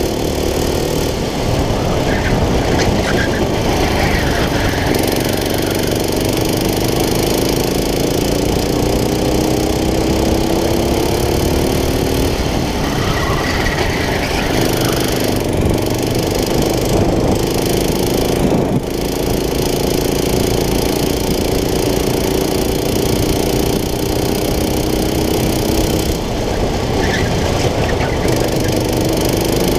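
Racing kart engine heard on board. Its pitch climbs steadily as the kart speeds up, then falls away twice, about twelve and twenty-six seconds in, as the kart slows for corners.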